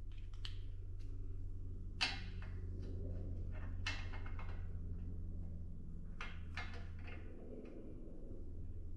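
Steel lock collars clicking and scraping against an excavator thumb's pivot shaft as they are worked by hand onto a tight fit, with a sharp click about two seconds in and a cluster of clicks a little after the middle. A steady low hum runs underneath.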